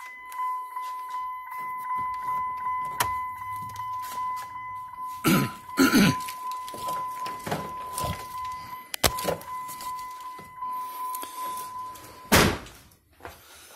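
Clunks and knocks of someone climbing out of a pickup truck's cab, with a loud thump about twelve seconds in, over a steady high-pitched electronic tone that stops just before it.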